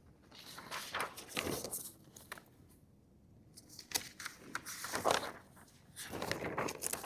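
Faint, scattered rustling and shuffling noises in a quiet room, with short gaps of near silence.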